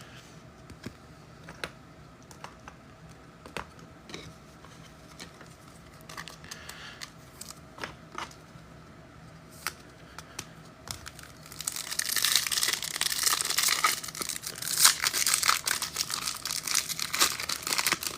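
Scattered light clicks, then from about twelve seconds in, a trading card pack's wrapper being torn open and crinkled loudly.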